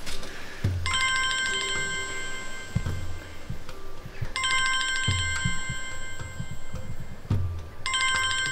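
Mobile phone ringing with a trilling, bell-like ringtone: two rings of about three seconds each with a short pause between, and a third starting near the end.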